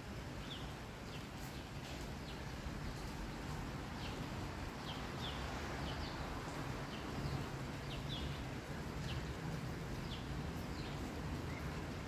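Steady rain falling, with a small bird giving short, high chirps that slide down in pitch, one every second or so, over a low steady rumble.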